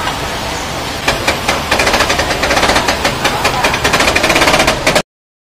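Nissan Serena Highway Star power sliding door mechanism making a rapid rattling "trek-tek-tek" clicking, starting about a second in and cutting off suddenly near the end: the fault sound that sends these doors in for power-sliding-door repair.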